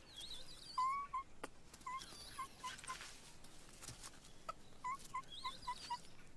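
Yunnan snub-nosed monkeys calling: short, squeaky calls, one about a second in, then quick runs of five or six, with fainter higher twittering over them.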